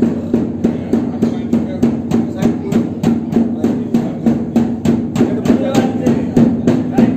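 Dhol barrel drum beaten with a stick in a steady, quick rhythm of about three strikes a second.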